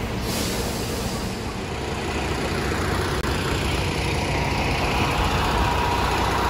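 A heavy vehicle's engine running steadily and growing gradually louder. A steady whine joins it about four seconds in.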